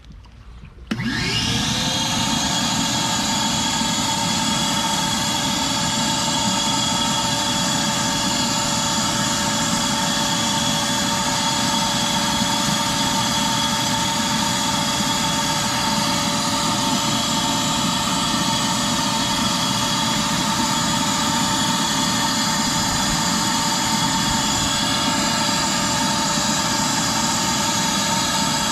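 Shop-Vac wet/dry vacuum motor switched on about a second in, its whine rising as it spins up, then running steadily.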